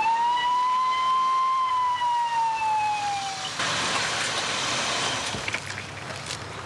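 A police siren wails once, rising quickly and then slowly falling away. After it fades, there is a steady rush of car noise and a few sharp clicks as the car doors open.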